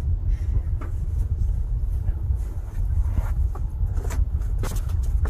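Steady low road and engine rumble inside a police patrol car, picked up by an officer's body camera, with a few light knocks and clicks.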